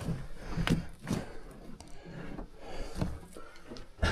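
Footsteps scuffing and knocking on the rocky floor of an old mine tunnel, a few irregular thuds.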